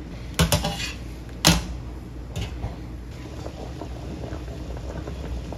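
Stainless steel saucepan of water at a rolling boil with ricotta gnocchi cooking in it, bubbling steadily as the gnocchi rise to the surface. Sharp knocks cut in about half a second in and again about a second and a half in, with a smaller one a little later.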